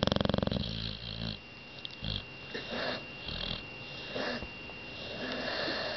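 Bulldog snoring in its sleep: a loud buzzing rattle of a snore stops about half a second in, followed by softer wheezy, snuffling breaths about once a second.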